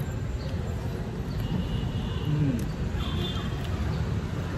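Steady low outdoor background rumble, with a few soft clicks and a brief low murmur about halfway through.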